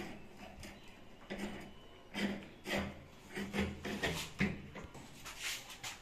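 Bathroom door lever handle and latch being worked by hand as the handle is fitted: a series of short metallic clicks and rubbing knocks against the door, some coming in quick succession in the middle.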